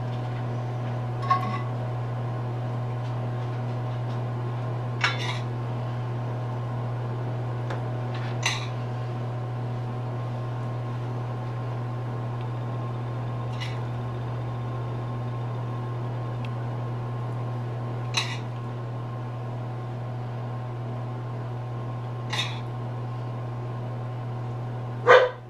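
A metal spoon clinking against metal pans as topping is scooped from a sauté pan onto scallops: seven sharp clinks a few seconds apart, the loudest near the end, over a steady low hum.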